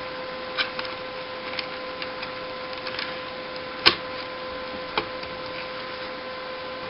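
Light clicks and taps of hard plastic as an action figure is fitted into a toy jet's cockpit, with a sharper click about four seconds in and another a second later, over a steady faint tone.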